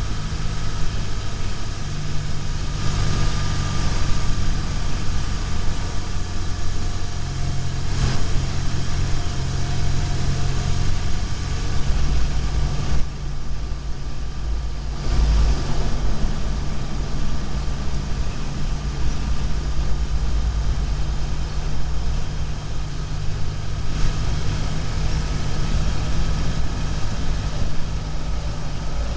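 BMW R1150GS boxer-twin engine running at a steady road speed, heard from a bike-mounted camera with wind and tyre noise over it. About twelve seconds in, the engine note drops lower, and the wind hiss dips briefly.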